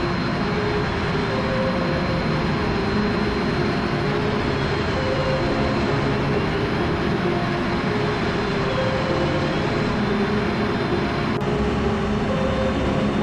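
Steady rushing engine and airflow noise inside the cockpit of an F-16 Fighting Falcon in flight, with a thin, steady high whine over it.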